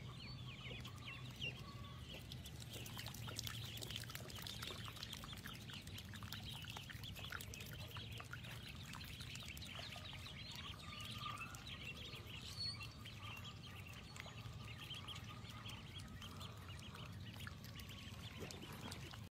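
A flock of goslings peeping continuously, many short high chirps overlapping, faint, over a low steady hum.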